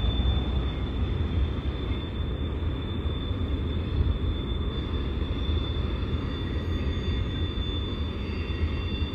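Freight train rolling past: a deep, steady rumble with a thin, high-pitched squeal running over it, and fainter high squeals joining about halfway through.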